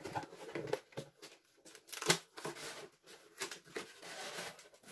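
Cardboard gift box being opened by hand: flaps scraping and packaging rustling, with short clicks and one sharper tear-like rasp about two seconds in.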